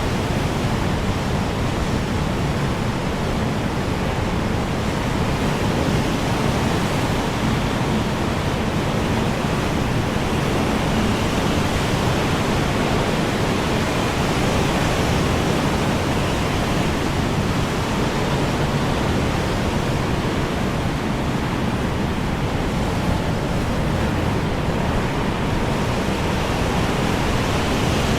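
Strong wind blowing steadily: an even, unbroken rushing noise with no single gust standing out.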